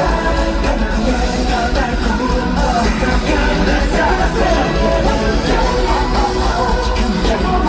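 Loud live pop music with a band-style backing and a melodic vocal line.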